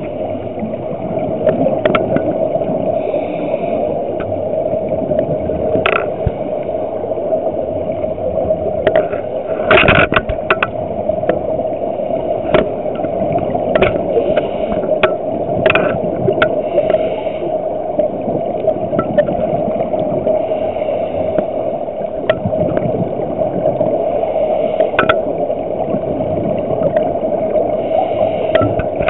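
Underwater sound through a camera's waterproof housing: a steady hum with gurgling bursts every few seconds, like a scuba diver's exhaled regulator bubbles, and scattered sharp clicks.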